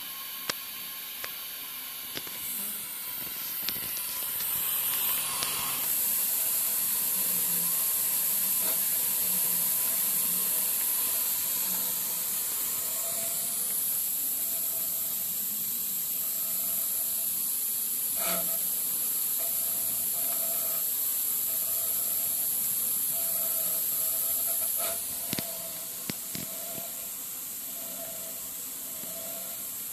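Steady hiss of compressed air escaping from the air bearings of a granite coordinate measuring machine. It swells a few seconds in and drops back near the end, with a few faint clicks.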